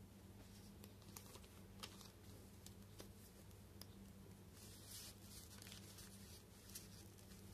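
Faint rustling and light clicks of paper and card being handled, as pages and a tipped-in picture card in a handmade journal are lifted and moved, over a low steady hum.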